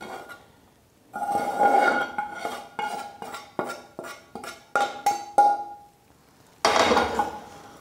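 A metal spatula scrapes and knocks roasted wheat flour out of a frying pan into a steel bowl. Each knock leaves a brief ringing tone. Near the end comes a louder scrape about a second long.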